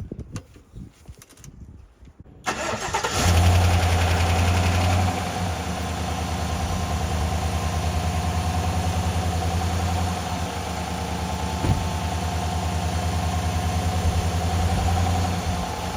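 2019 GMC Sierra's 5.3-litre V8 starting about two and a half seconds in: it catches at once, runs at a raised idle for a couple of seconds, then settles to a steady idle. This is the first start after an oil change.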